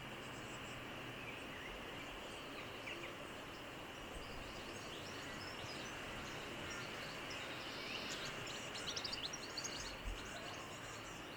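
Steady outdoor background hiss with scattered faint, high, short bird chirps, which come thickest in a quick run near the end.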